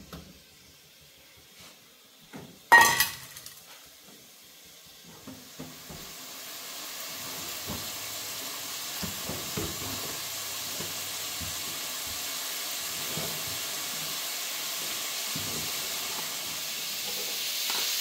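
A loud clank about three seconds in, then food in a pan starts sizzling on the stove, growing louder over a few seconds and settling into a steady frying hiss, with a few faint knocks.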